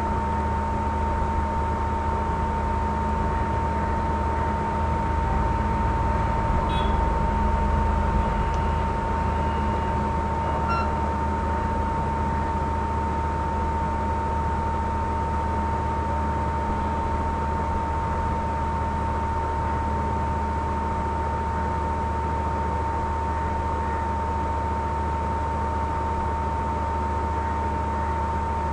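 Steady background noise: an even hiss with a constant high-pitched whine and a low hum underneath, unchanging throughout.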